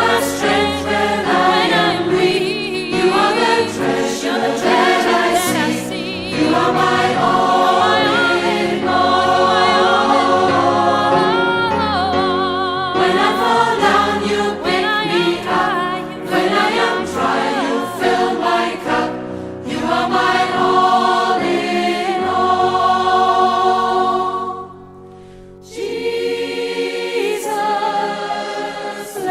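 Music: a choir singing a gospel-style song over a bass line, with a short quieter dip near the end before it picks up again.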